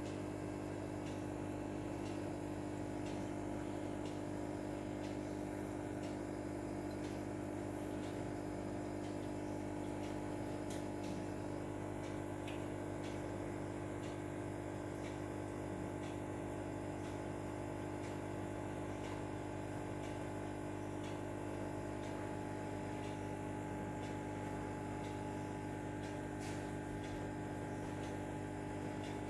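Steady mechanical hum holding several fixed tones, with a few faint clicks scattered through it.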